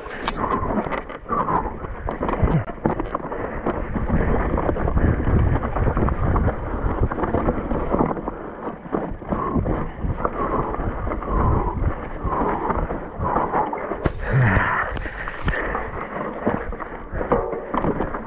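Electric mountain bike ridden hard over rough trail, heard from an onboard camera: continual rattling, knocking and clattering of the bike over the ground, with wind buffeting the microphone. A louder clatter comes about fourteen seconds in.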